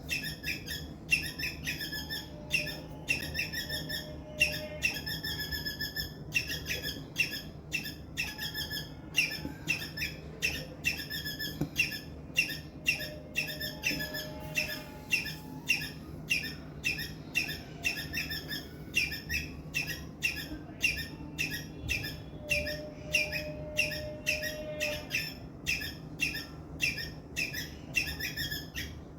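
Indian palm squirrel giving its loud, sharp chirping call over and over, about two chirps a second. This is the call used as a distress call to draw other squirrels in.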